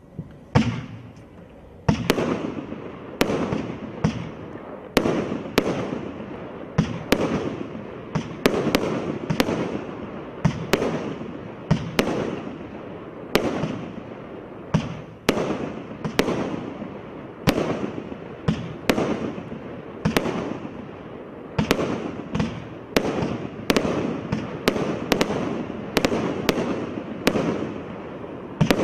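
A Black Label 'Twisted Twins' 200-shot firework cake firing: a steady run of sharp reports, about one and a half a second, each shot trailing off before the next.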